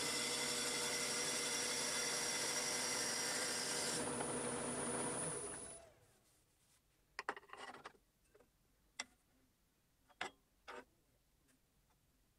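A workshop power tool running steadily with a whine, then switched off and winding down to a stop about five or six seconds in. A few light clicks and knocks follow as tools or work are handled.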